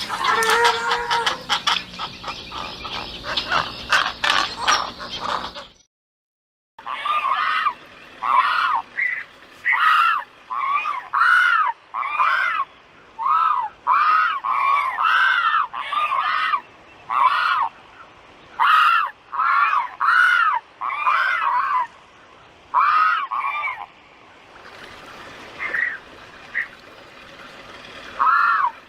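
A waterbird giving a long series of short honking calls, each rising and then falling in pitch, about one a second, after a dense, many-pitched animal sound in the first six seconds that cuts off into a moment of silence. The calls thin out near the end over a faint hiss.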